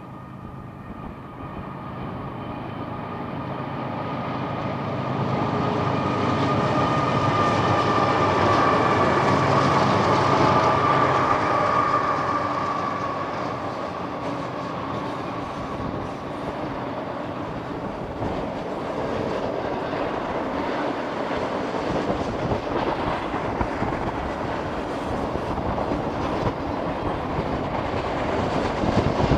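A BNSF freight train led by GE ES44C4 diesel-electric locomotives passes, its engines growing louder to a peak about ten seconds in. The steady rumble and clatter of double-stack container cars rolling by on the rails follows.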